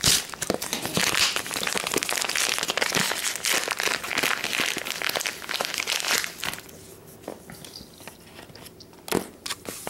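Paper wrapping crinkling and tearing as a catnip toy ball is unwrapped by hand, for about six and a half seconds. Then it goes much quieter, with one sharp knock near the end.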